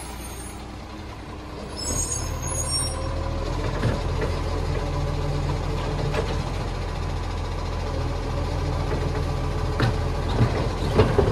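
Diesel engine of a side-loading garbage truck running steadily as the truck creeps along the street, growing louder about two seconds in.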